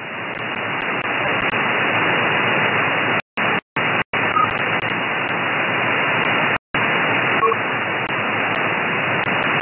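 Shortwave receiver hiss and static from an SDRplay RSPduo on a Mini Whip active antenna, tuned to the 20 m amateur band in single-sideband mode, heard as a steady band-limited rush. It cuts out briefly about four times around the middle, and two short faint whistles come through.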